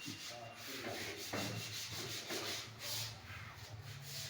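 Electric wall sanding machine running and abrading the wall surface: a steady motor hum under a gritty scraping hiss that swells and eases as the pad is worked over the wall.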